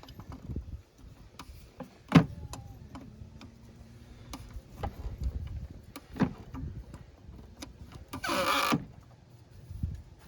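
Socket wrench and metal clinks and knocks while the cartridge oil filter housing cap is worked loose and removed, with a sharp clack about 2 s in and a short rushing noise at about 8 s.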